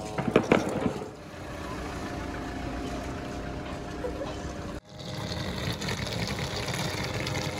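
Street noise: a steady hum of running vehicle engines, with a brief clatter of knocks about half a second in.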